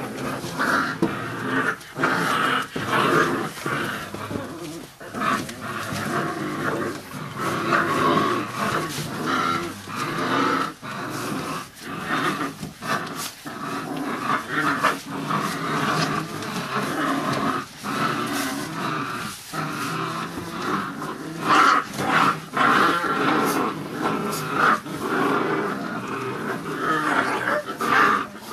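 A litter of five-week-old bandog puppies crying and growling all together, a continuous busy tangle of many short overlapping puppy voices.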